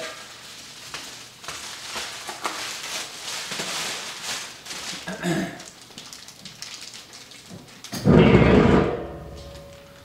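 Clear plastic bag crinkling and rustling as it is pulled off a stainless steel fermenter, then a loud bump lasting about a second near the end.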